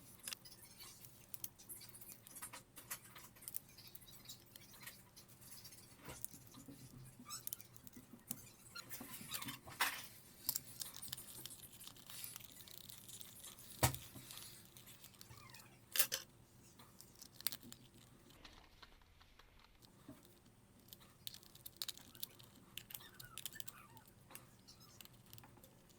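Faint handling of a plastic gamepad as a replacement trigger button is fitted and the shell reassembled. Scattered small plastic clicks and scrapes run throughout, with sharper clicks about 14 and 16 seconds in.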